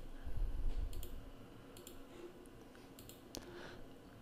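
A few scattered computer mouse clicks, with a low rumble during the first second.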